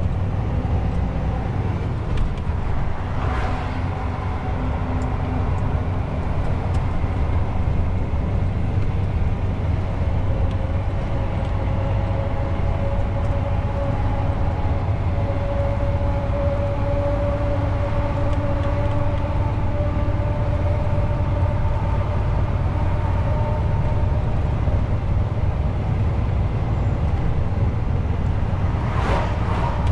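A truck's diesel engine and road noise heard from inside the cab while driving: a steady low rumble with a faint whine that drifts up and down. Brief rushes of noise come about three seconds in and again near the end.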